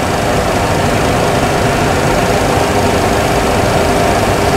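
Steady flight-deck noise of a Boeing 737 Classic on approach: an even rushing hum of engines and airflow, with a faint steady tone running through it.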